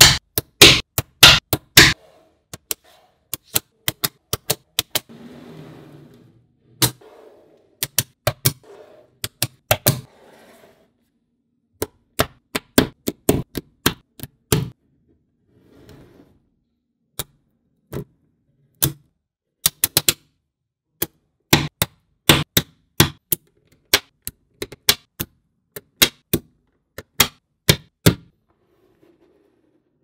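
Small magnetic balls clicking sharply as they snap onto one another and onto the model, one after another at an irregular pace, sometimes in quick runs, with short pauses and faint handling rustle between.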